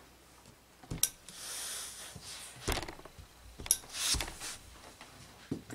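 Industrial steam iron with a water hose: a short hiss of steam about a second in, and several knocks as the iron is set down and moved over the fabric on the table.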